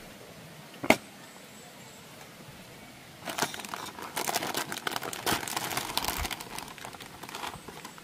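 A single sharp click about a second in, then about four seconds of dense, irregular crinkling and crackling, as of something being handled and crumpled.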